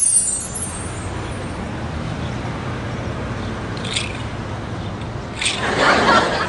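A falling whoosh at the scene change, then steady street ambience with a low traffic hum. Short hissy sounds come about four and five and a half seconds in, and a louder noisy burst comes near the end.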